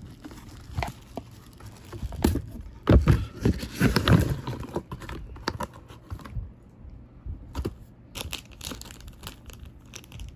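Product packaging being handled: irregular rustling and crinkling of box and wrapping with scattered clicks and taps, loudest in a dense burst of rustling about three to four seconds in.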